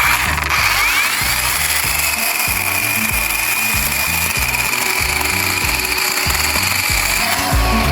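Battery-powered mini chainsaw running steadily, its motor and chain whining at a constant pitch after a rising spin-up about a second in, stopping near the end; background music with a steady beat.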